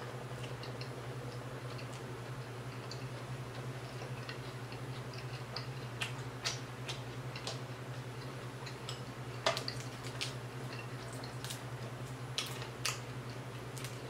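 Close-miked eating sounds: scattered sharp clicks and wet mouth smacks of chewing fried whole tilapia and bread and picking the fish apart by hand, over a steady low hum.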